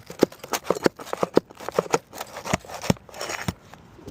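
A run of irregular sharp clicks and knocks, about two to four a second, from a roofing tool prying and scraping at stuck asphalt shingles.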